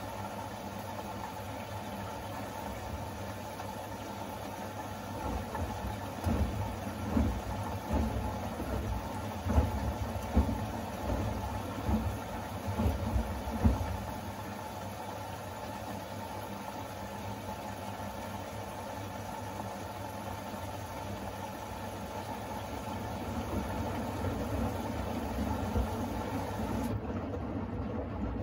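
Siemens iQ700 front-loading washing machine tumbling a load of shirts in its first rinse: a steady motor hum, with irregular thuds of the wet load turning in the drum from about five seconds in to about fourteen.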